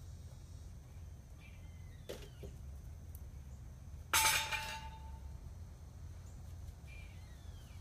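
A single sharp clatter of a hard object about four seconds in, with a brief ringing tone that fades within a second, over a steady low rumble. A few faint short chirps come before and after it.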